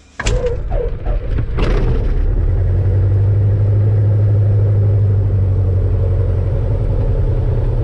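A Cessna 172's piston engine catching and starting up a fraction of a second in, running unevenly for about two seconds, then settling into a loud, steady idle.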